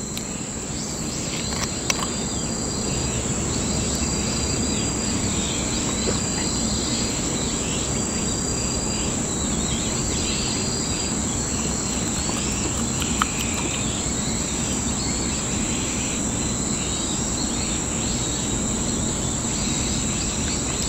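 Outdoor insect chorus: a steady high-pitched drone, with short repeated chirps over it in the first half. Two light clicks, about two seconds in and again past the middle.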